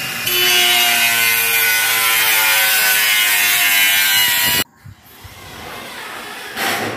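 Hand-held power tool working on an aluminium window frame, loud and steady with shifting whining pitches, cutting off suddenly about four and a half seconds in.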